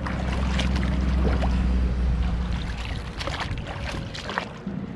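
Water splashing and sloshing as swim fins and a snorkel are rinsed by hand in a shallow freshwater stream, in a run of short splashes, with a low rumble through the first half.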